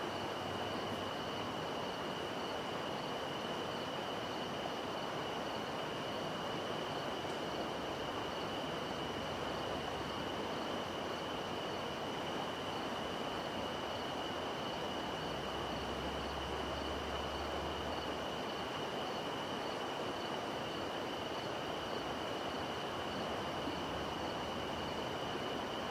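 River water flowing in a steady, even rush, with night insects trilling on one continuous high pitch over it.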